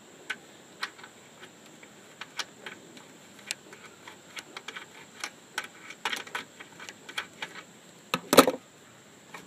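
Irregular metal clicks and small clinks of pliers gripping and working a screw in a fluorescent light fixture's sheet-steel housing, with a louder clatter about eight seconds in.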